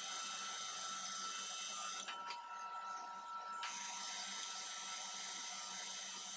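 MIG welder's wire feed running, a steady mechanical whine with a hiss, as wire is fed through the torch cable. The hiss drops away for about a second and a half around two seconds in, then comes back.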